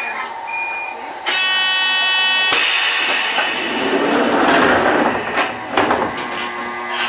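Toyama Chitetsu 14760 series electric train pulling away from a station: a harsh horn-like tone sounds for about a second, then a long hiss of air follows, with a few sharp knocks near the end.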